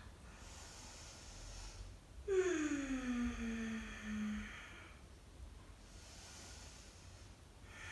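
A woman's slow yoga breathing: a faint breath in, then a long audible sighing exhale with her voice gliding down in pitch, lasting about two seconds.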